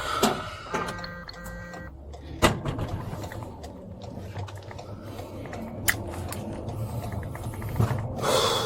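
Patrol car cabin noise: the vehicle's steady low running hum. A short electronic beep tone sounds about a second in, and there are a couple of sharp clicks.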